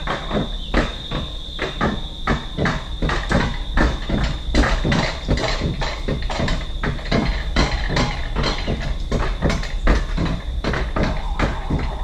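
Rail bobsled running down its steel track, its wheels clattering over the track joints about three times a second over a steady low rumble.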